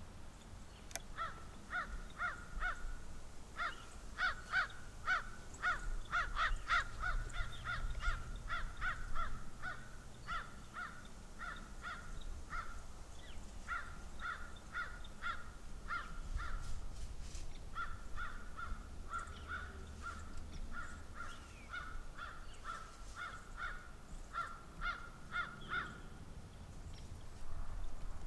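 Crows cawing: a long run of short, harsh calls, several a second, overlapping as if from more than one bird.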